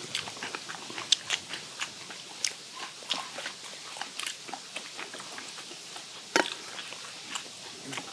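Several people chewing and crunching steamed skate, with frequent short, sharp clicks; the loudest click comes about six and a half seconds in.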